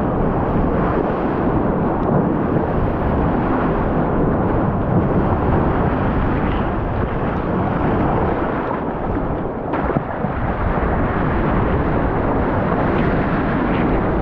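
Seawater rushing and splashing around a surfboard as it is paddled through choppy water, heard close to the microphone as a steady, dense rumbling noise.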